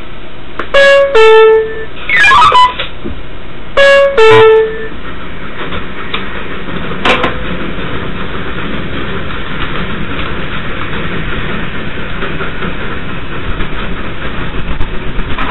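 Subway train horn giving two short two-note toots, high then low, about three seconds apart, with a brief sliding tone between them. After that, the steady running noise of the train on the elevated track, with a single knock about seven seconds in.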